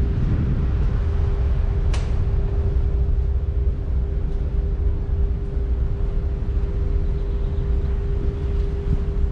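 Wind buffeting the microphone on the deck of the Tallink Symphony cruise ferry under way, over a steady low rumble and a constant mid-pitched hum from the ship. A single sharp click about two seconds in.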